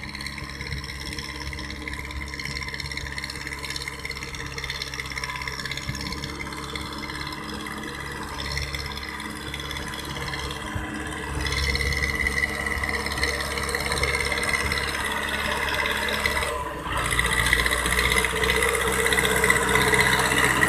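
Powertrac 4455 BT 60 HP diesel tractor engine running steadily under load while driving a rotavator through dry soil. It grows louder in the second half as the tractor comes close.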